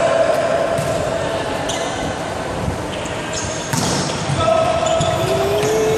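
Volleyball rally in an echoing sports hall: a few sharp slaps of hands on the ball, including a hard hit about three-quarters of the way through, and sneakers squeaking on the court floor, over a steady hubbub of players' and spectators' voices with a shout near the end.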